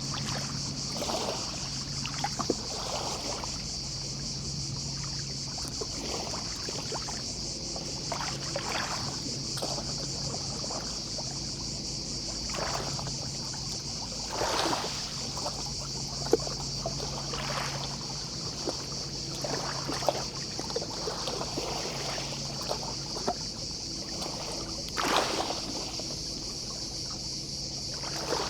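Small, gentle sea waves lapping and splashing on the shore in short washes every second or few, under a steady high-pitched chorus of distant cicadas.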